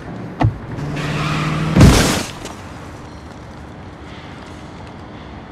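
A car's engine runs and grows louder as it lurches forward, then a loud crash about two seconds in as the car smashes into a wall. A sharp knock comes just before the engine picks up.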